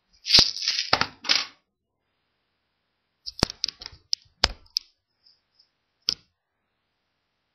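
Handling noise of small hard objects: a burst of rustling and clicks at the start, then after a pause a quick run of light, sharp clicks and taps, and one more click near the end.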